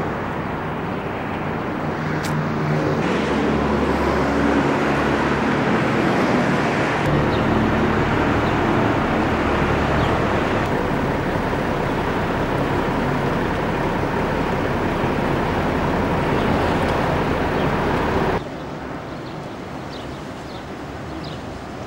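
Road traffic: a steady noise of passing cars and engines. It drops suddenly to a quieter outdoor background about 18 seconds in.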